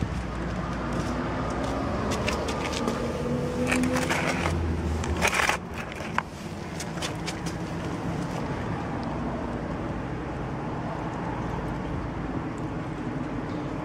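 Steady street background noise with a vehicle engine passing. A run of clicks, ending in a knock, comes about four to six seconds in.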